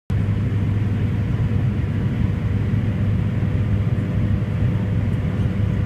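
Cabin noise of a Fokker 50 twin turboprop airliner in flight: the steady low drone of its propellers and engines, with a thin steady whine above it.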